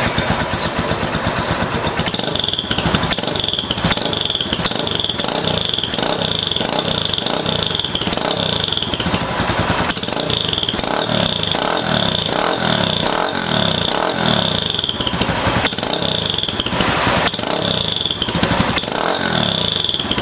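Honda Titan single-cylinder motorcycle engine running through a Roncar ML Competition sport exhaust with the long 60 cm tip, revved again and again. A high whistle rides over the exhaust note, the exhaust's characteristic whistle on throttle pick-up.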